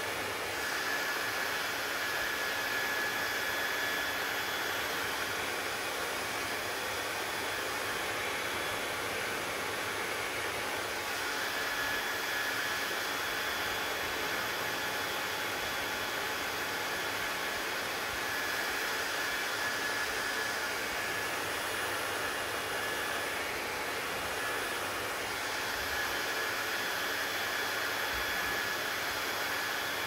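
Handheld hair dryer blowing on hair: a constant rush of air with a high whine that fades and comes back several times.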